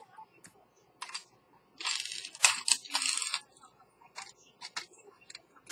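Handling noise from a steel watch case turned in gloved fingers on a workbench: a few small clicks, then about a second and a half of scraping noise roughly two seconds in, then more scattered light clicks.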